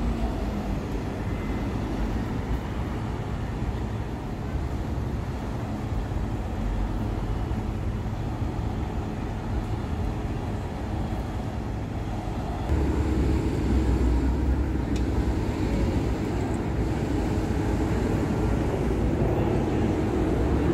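Miami Metromover people-mover car running, a steady low rumble that grows louder about 13 seconds in.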